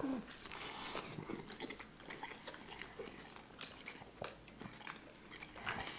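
Close-miked biting and chewing of a sub sandwich: soft, wet mouth sounds with scattered short clicks and smacks, one sharper click about four seconds in.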